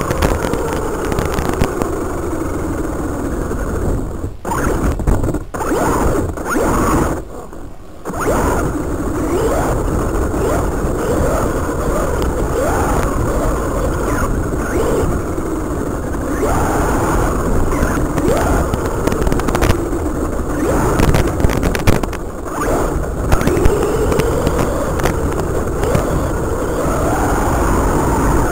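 Electric RC off-road car driving, its motor and gears whining with a pitch that rises and falls again and again as the throttle is worked, over rough tyre and drivetrain noise. The sound drops out briefly a few times between about four and eight seconds in.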